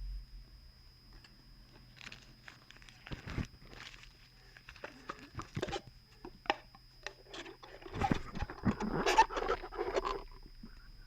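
McDonald's paper packaging crinkling and rustling as it is opened and handled: scattered crackles at first, then a denser, louder stretch of crinkling about eight to ten seconds in.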